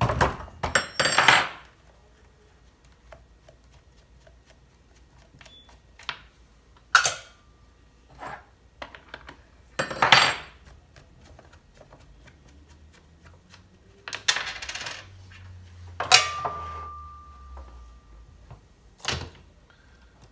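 Scattered metallic clinks and clanks from a chainsaw's chain and parts being handled and set down on a workbench. One knock about two-thirds through leaves a short ringing tone.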